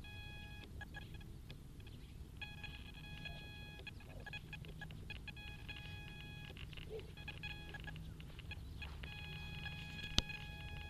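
Faint electronic beeping: a high, steady multi-tone beep sounding on and off, over a low hum, with one sharp click near the end.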